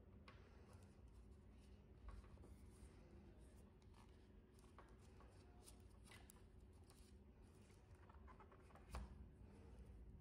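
Faint rustling and light taps of cardboard packaging being handled as a watch is pushed out of its cardboard insert and lifted out, with one louder knock about nine seconds in. A low steady hum lies underneath.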